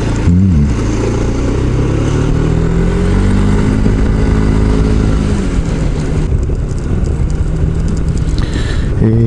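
Yamaha Majesty S scooter's single-cylinder engine running under way. Its pitch rises as it speeds up a few seconds in, holds, then drops back as the throttle eases.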